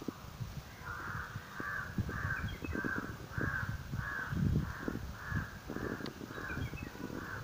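A bird calling in a long, evenly paced series of short notes, about one every 0.6 seconds. Low thumps and rumble from the phone being carried sound underneath.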